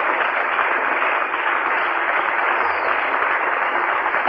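Audience applauding steadily, a continuous even clatter of many hands.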